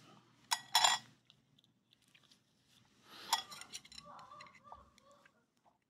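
Chopsticks clicking against a ceramic bowl and moving pieces of boiled pork: two sharp clinks under a second in, a few more about three seconds in.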